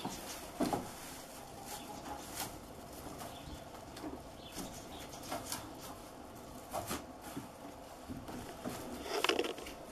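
Goat kids feeding on leafy branches in a wall rack: irregular rustling of leaves and twigs, with scattered clicks and scrapes against the wooden boards and a louder scrape about half a second in and another near the end.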